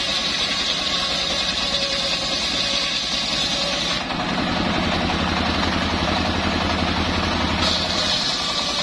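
Homemade engine-driven circular sawmill running as the blade rips a hardwood beam lengthwise, a high saw whine over the engine. About four seconds in the whine drops and the lower engine drone grows heavier, and the whine comes back near the end.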